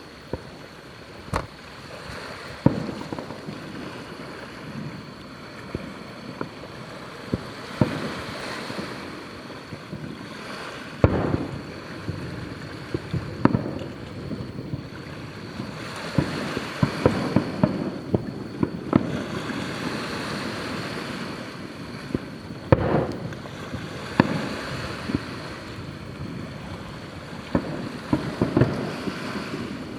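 Aerial fireworks going off: irregular sharp bangs every second or few, the loudest about 11 and 23 seconds in, over a continuous rushing noise.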